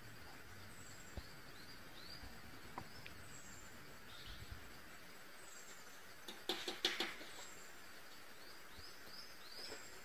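Black-headed woodpecker pecking at dead wood: a quick burst of about six sharp knocks a little past halfway. Faint high bird chirps repeat in the background.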